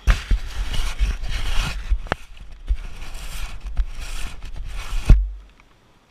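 Handling noise on a helmet-mounted camera: a gloved hand rubbing and knocking against the camera, with a heavy thump about five seconds in, then the sound cuts off suddenly.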